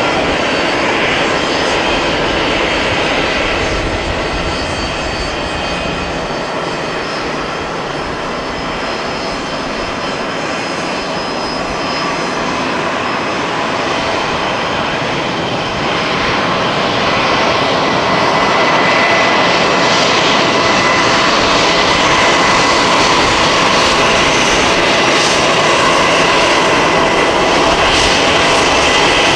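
Jet engines running steadily: first an easyJet Airbus airliner moving along the runway, its noise easing over the first several seconds. From about halfway through, a business jet's rear-mounted engines taxiing close by, with a steady high whine that grows louder.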